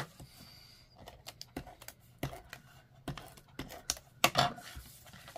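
Irregular light clicks and taps of paper and stamping tools being handled on a craft table, the loudest tap about four seconds in.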